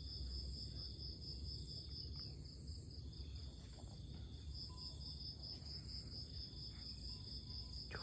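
Steady background chorus of insects, a high trill pulsing several times a second, over a low even background hum.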